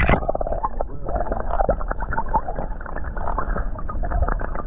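A camera plunging into shallow sea water, with a sharp splash right at the start. Then comes muffled underwater sound: a low rumble with dense bubbly crackling, pops and gurgling.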